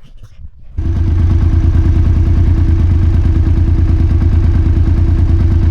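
Snowmobile engine running steadily with a fast even pulse, coming in abruptly about a second in.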